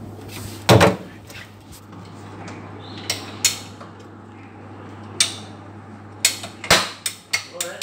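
Irregular metallic clinks and knocks of tools and parts being handled. The loudest is a little under a second in, with a quick run of them near the end, over a steady low hum.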